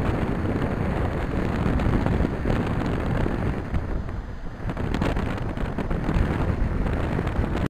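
Gusty wind buffeting the camera's microphone, over storm surf breaking on the beach; the gusts ease briefly a little over halfway through.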